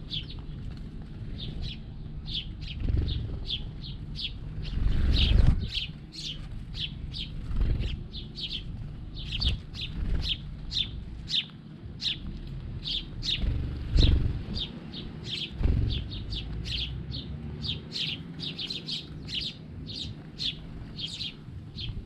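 A group of house sparrows chirping continually, several short chirps a second. A few low thumps come through, the loudest about five seconds in.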